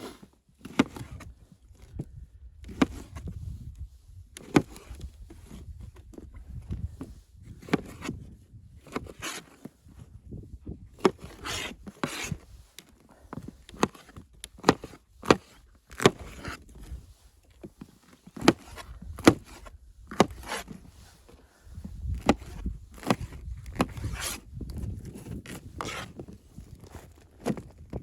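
Irregular sharp knocks and scrapes, roughly one every second or two, with a low rumble in places.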